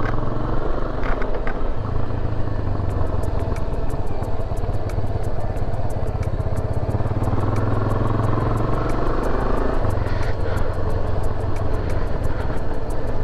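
Motorcycle engine running steadily under way, with road and wind noise. From about three seconds in there is also a fast, regular ticking.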